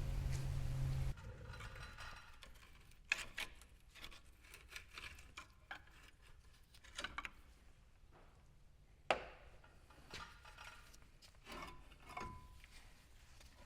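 A steady low hum that cuts off suddenly about a second in, then scattered metal clinks and knocks of hand work on a truck's front brake caliper as it is unbolted and hung out of the way, with two sharper knocks about three and nine seconds in.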